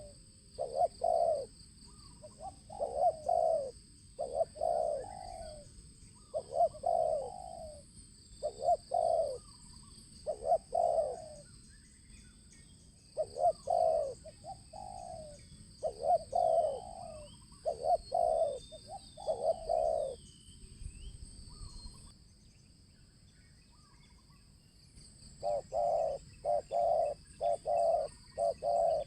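Spotted dove cooing in repeated low phrases of several notes. It pauses for a few seconds near the end, then starts again with a quicker run of coos. A steady high-pitched hum and faint small chirps run underneath.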